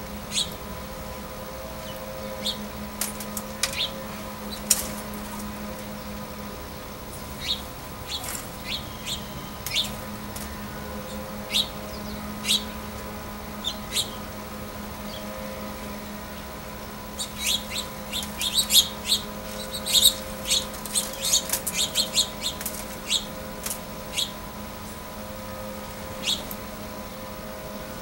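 Small songbirds chirping in short, sharp notes, scattered at first, then a quick flurry of chirps for several seconds past the middle, over a steady low hum.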